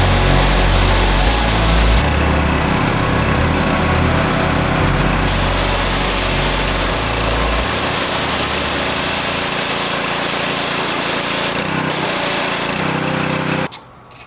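Pressure washer spraying down a degreased engine block: a loud, steady hiss of water jetting onto metal over the washer's running motor, cutting off sharply near the end.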